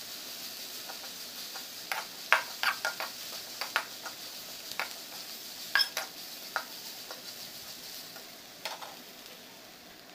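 Sliced onions, green chillies and crushed ginger-garlic sizzling in hot oil in an aluminium pan while a steel spoon stirs them, clinking and scraping against the pan at irregular moments. The sizzle dies down near the end.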